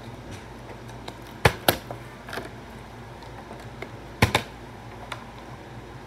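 Partly filled plastic water bottle tossed in bottle flips and hitting the floor: a pair of sharp knocks about a second and a half in, another pair about four seconds in, and a few fainter clacks.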